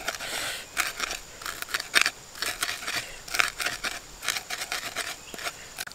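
Pestle crushing and grinding chilies, shallots and garlic in a wooden mortar for sambal: short crunching, scraping strokes, about two a second.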